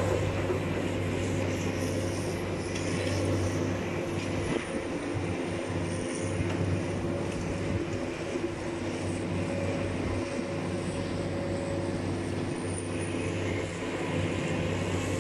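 Diesel engines of tracked demolition excavators running at a steady pitch, a continuous low drone with overtones.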